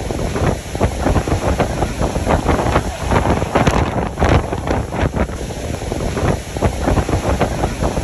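Wind buffeting the microphone on a moving cruise boat: a loud, dense rush of noise with rapid, irregular gusty bursts.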